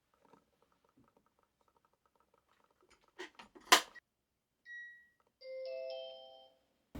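A few clicks, one sharp and loud, then a short electronic beep and a chime of several held tones that fades out after about a second.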